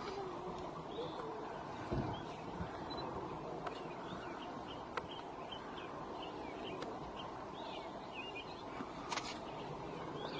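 Small birds chirping all through, over a steady low background hiss, with a few sharp clicks.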